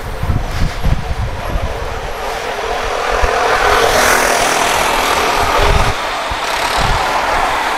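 Wind buffeting the microphone on a moving bicycle, then a motorcycle passing close alongside, its engine building to its loudest around the middle and easing off.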